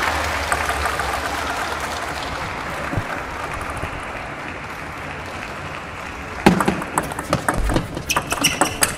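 Arena crowd murmur and applause that fade over the first few seconds. Then, about six and a half seconds in, a table tennis serve and rally start: the ball clicks sharply off the table and the rubber-faced paddles in quick succession.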